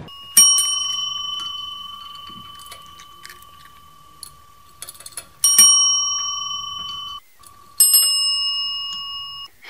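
Chrome service bells on a table struck three times by cats' paws, each strike leaving a bright ring that fades slowly. The second ring is cut off suddenly before the third strike.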